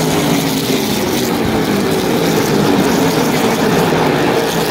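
A pack of super late model stock cars racing past, their V8 engines making a loud, steady drone. Several engine notes overlap, rising and falling in pitch as the cars go by.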